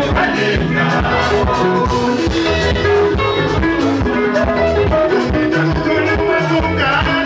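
Live Zimbabwean rumba band playing: electric guitars and bass guitar over a drum kit keeping a steady beat.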